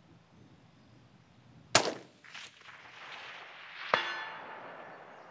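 A single rifle shot about two seconds in, which echoes. It is followed by a rising swell that ends in a sharp metallic clang, which rings and fades out.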